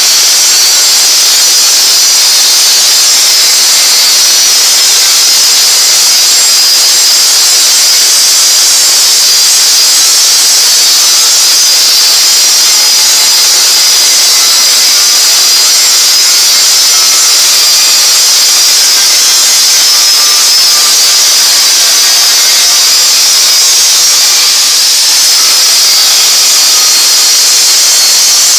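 Gas cutting torch burning through a thick-walled pipe turning on a lathe: a loud, steady, high hiss that holds unchanged.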